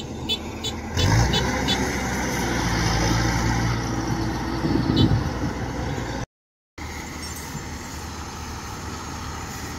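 Kubota DC-105X combine harvester's diesel engine working hard in deep mud: a light rhythmic ticking, then about a second in the engine comes up loud and strains, rising in pitch near the middle. After a short break the sound resumes as a steadier, quieter engine drone.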